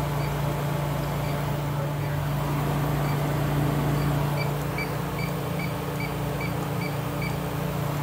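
Electronic refrigerant leak detector (Inficon D-TEK Stratus) beeping, about two and a half short high beeps a second, from about three seconds in until near the end, its probe at the walk-in cooler's evaporator coil: it is alarming on refrigerant leaking from the coil. A steady low hum runs beneath.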